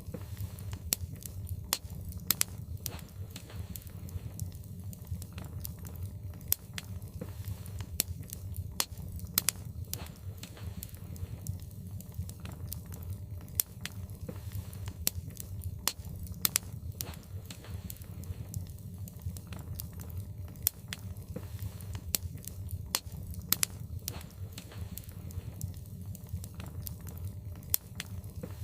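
Wood logs burning in a fireplace, with irregular sharp crackles and pops, several a second, over a steady low rumble.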